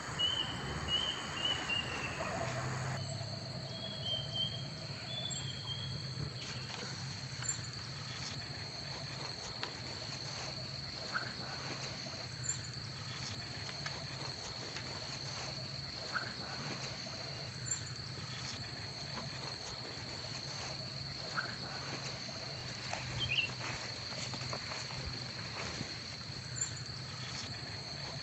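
A steady high-pitched insect trill over a low hum, with faint scattered small ticks and crinkles of a sheet of paper being handled and folded.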